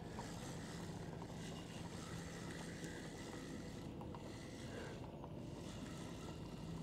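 A steady low motor hum over a background hiss; the hum weakens in the middle and comes back near the end.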